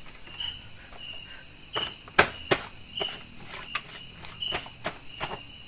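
Night-time forest insect chorus: a steady high buzz with a short chirp repeating every half second or so. From about two seconds in, a run of sharp clicks and knocks sounds over it, the two loudest close together, thinning out by about five seconds.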